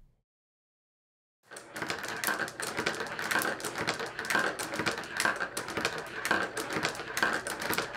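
Silence for about a second and a half, then a dense, continuous clatter of glass marbles rolling through a wooden-block marble run, clicking against the blocks and against each other.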